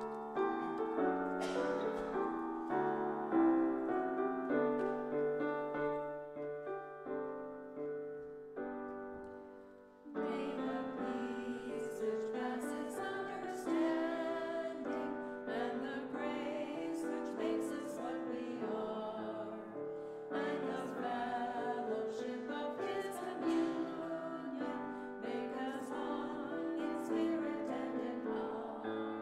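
Piano playing a closing voluntary as the service ends. The music thins out and briefly drops away about ten seconds in, then resumes with a fuller texture.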